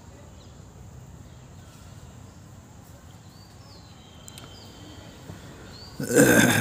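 Outdoor background with faint bird chirps coming and going, then a sudden loud burst of noise lasting about half a second near the end.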